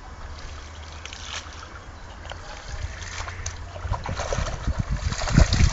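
Wind rumbling on the microphone, gusting harder in the second half, with faint small splashes of a dog wading in shallow lake water.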